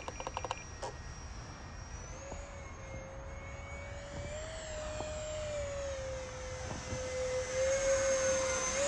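64 mm electric ducted fan of a 3D-printed RC J-10 jet whining steadily in flight, its pitch drifting a little. It grows louder over the last couple of seconds as the jet comes closer overhead.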